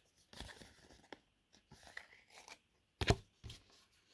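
Trading cards being handled: faint soft scrapes and rustles as cards slide off the stack, with a sharper tap or click about three seconds in.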